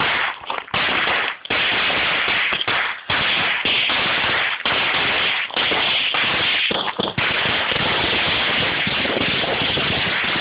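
A roll of about 175 firecrackers going off in a rapid, nearly continuous string of bangs, broken by a few short gaps.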